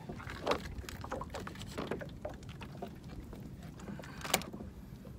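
Scattered small clicks and knocks of fishing tackle being handled while a hooked grouper is held in a lip grip and unhooked, with one sharp click a little over four seconds in, over a steady low background rumble.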